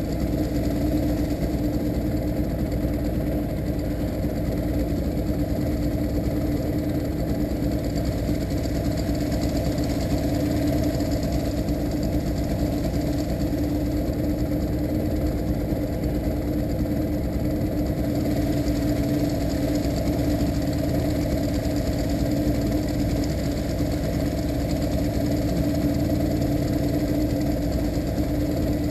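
Suzuki DT40 two-stroke outboard motor running at a steady speed with an even, unchanging pitch as the boat moves along.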